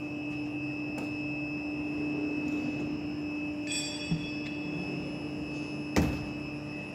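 Ghiringhelli M200 CNC centerless grinder running: a steady hum with a high whine above it. A light click about four seconds in and a sharp knock near the end as a hand takes hold of the machine's guard door handle.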